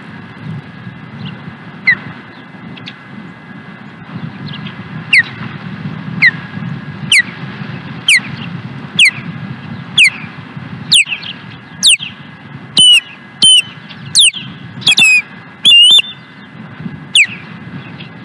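Osprey calling: a run of sharp, high, downward-sliding whistled cheeps about once a second, getting louder and a little quicker past the middle, where a few calls come doubled and more complex.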